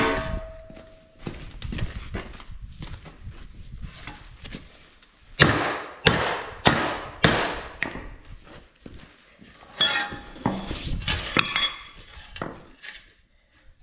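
Small sledgehammer striking the bent sheet steel of a salt spreader to straighten it: a ringing clang at the start, scattered knocks, then four heavy blows in quick succession about five seconds in. Clanking of metal with a ringing note near the end.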